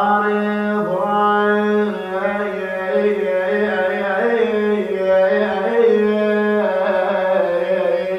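Instrumental interlude of an Iraqi lament song: a slow melody of sustained, brass-like notes over a held low note, with no voice.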